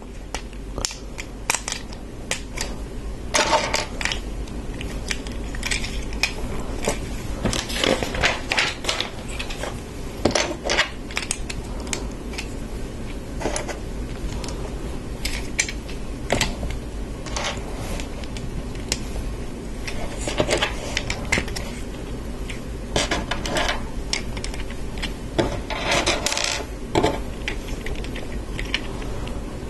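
Plastic LEGO bricks clicking and clattering as pieces are handled and pressed together: irregular sharp clicks, several in quick clusters.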